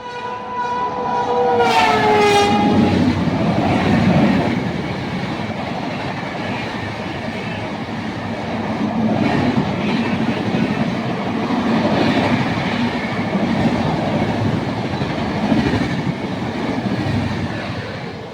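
Express train passing at about 130 km/h: its horn sounds briefly, the pitch dropping as it goes by, then the steady rush and rumble of the coaches rolling past.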